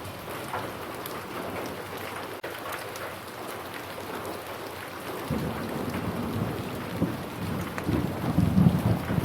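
Steady rain falling. About halfway through, a low rumble of thunder rises and grows loudest near the end.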